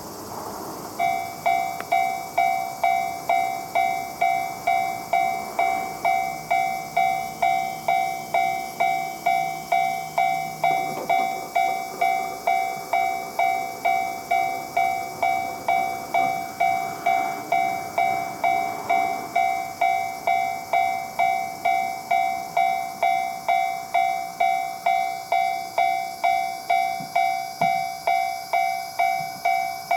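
Japanese railroad-crossing alarm sounding its 'kan-kan' bell. It starts about a second in and keeps a steady rhythm of a little under two ringing strikes a second.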